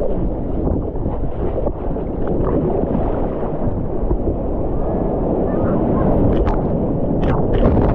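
Ocean surf churning around a camera held at water level, with a steady rumble of water and wind on the microphone. About six seconds in, a breaking wave crashes over the camera in a run of sharp splashes.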